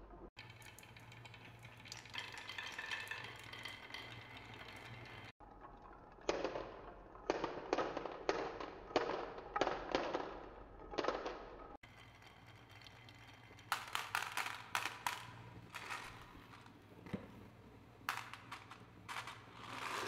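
Glass marbles rolling along wooden marble-run tracks, a steady rolling rumble with light clicks. In later stretches it turns to clusters of sharp clacks and clinks as marbles drop and knock into a heap of glass marbles in a plastic toy dump truck. The sound breaks off abruptly twice between takes.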